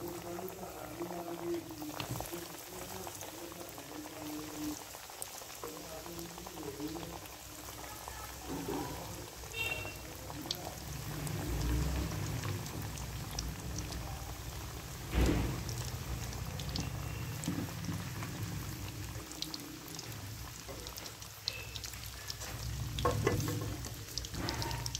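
Breaded chicken nuggets deep-frying in hot ghee in a kadhai: a steady sizzle and crackle of bubbling fat. A single knock about fifteen seconds in is the loudest sound.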